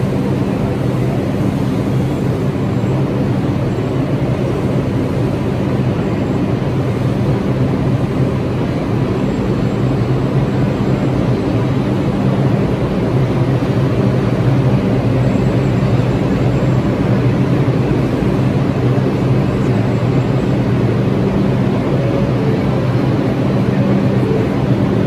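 Bombardier R142 subway train standing at the platform: its onboard equipment runs with a steady low hum, a few even tones over a constant rumble.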